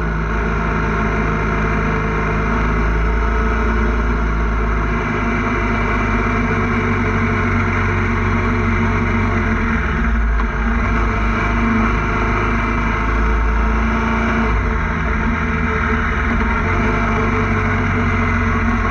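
Motorcycle engine running at cruising speed on the road, heard from the bike itself, with wind and road rush over it; the engine note holds steady and shifts a few times as the throttle changes.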